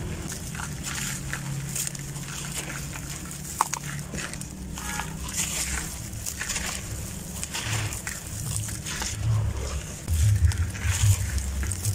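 Dry, gritty grey lumps crumbled by hand, with irregular crunchy crackles as grit and powder sprinkle into shallow water in a bucket. Heavier, louder handling thuds come in near the end.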